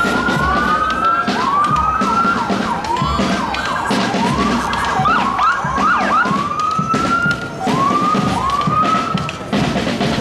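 Emergency vehicle siren sounding in rising sweeps about once a second, switching to quicker, overlapping up-and-down sweeps around the middle, then back to slower rising sweeps.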